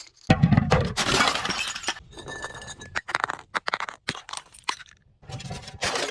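Glass being broken and crushed: a loud crunch of breaking glass about a quarter second in, scattered clinks of shards in the middle, and a second crunch near the end.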